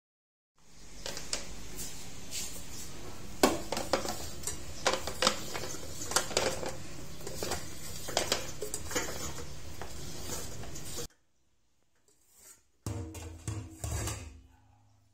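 Kitchen utensils clattering and clinking as they are handled and dropped into a utensil holder: many sharp, irregular clicks over a steady background noise. The noise cuts off abruptly about eleven seconds in, and a short burst of clatter follows near the end.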